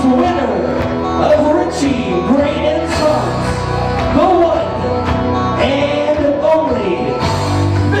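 Music: a song with sung vocals over a steady bass line, playing loud.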